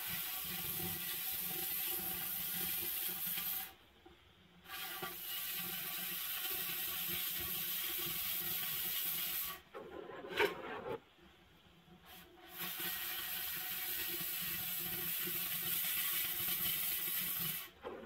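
Oxy-fuel cutting torch hissing steadily as it cuts through steel pipe. The hiss stops twice, briefly at about four seconds and for about three seconds in the middle, then resumes. A single sharp knock comes during the longer break.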